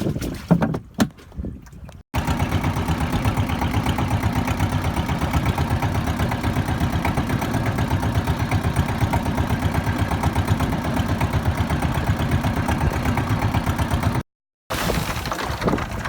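A boat's engine running steadily with a fast, even chug. It starts abruptly about two seconds in and cuts off briefly near the end; before it come a few knocks and wind noise.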